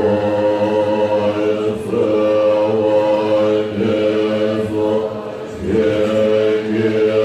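Tibetan Buddhist monks chanting prayers together in unison on one low, steady pitch. The chant goes in phrases of about two seconds, with brief breaks between them.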